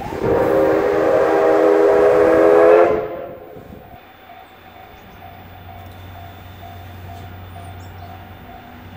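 Paleo Express steam locomotive sounding its departure whistle: one long blast of several steady tones lasting about three seconds, cut off sharply. After it, a much quieter steady low rumble from the locomotive as it starts away.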